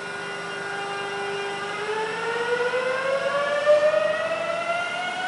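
Flytoget airport express electric train's traction motors whining as it pulls away: a steady tone that begins to rise in pitch about two seconds in as the train accelerates.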